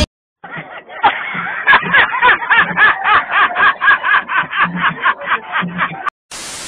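A man laughing hard and loud, a rapid rhythmic run of 'ha's at about four a second. It cuts off just after six seconds in, replaced by a short burst of hiss.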